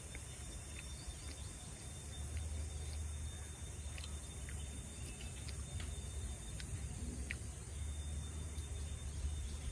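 Woodland ambience: scattered short bird chirps over a steady high insect tone, with a steady low rumble underneath.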